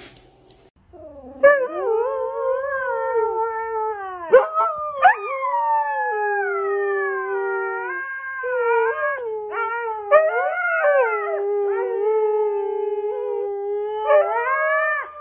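Husky howling at a vacuum cleaner: long, wavering howls that rise and fall in pitch, starting about a second and a half in and broken by a few short pauses.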